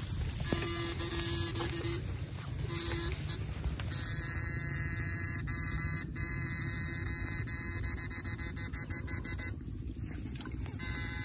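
Homemade backpack electrofishing shocker humming as its two pole electrodes are held in the water, settling into a steady electric buzz about four seconds in, with a fast run of clicks through the middle.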